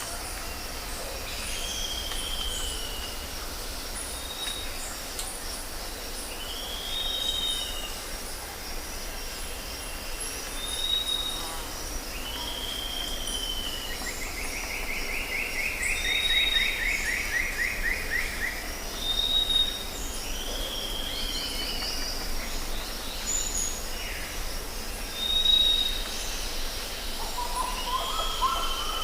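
Jungle ambience: birds calling over and over with short arching calls and brief high whistles, and one long buzzy trill lasting a few seconds about halfway through, over a steady high-pitched drone and a low rumble.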